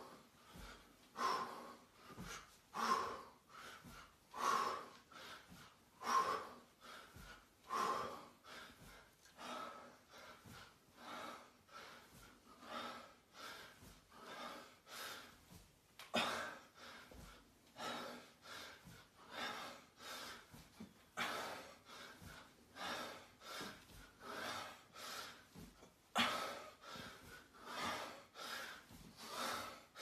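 A man's forceful, rhythmic breaths in time with kettlebell swings, at first about one every second and a half, then coming about twice as fast from about halfway through.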